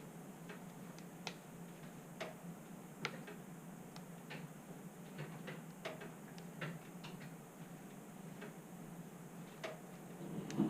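Wood fire in a fireplace crackling: irregular sharp snaps and pops from burning logs, a dozen or so, with a louder pop near the end.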